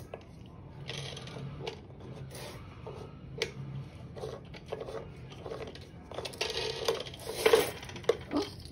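Wooden pieces of a toddler activity-cube toy being spun and pushed: light clicking and clacking with scraping, rattling bursts, busiest and loudest about six to seven and a half seconds in.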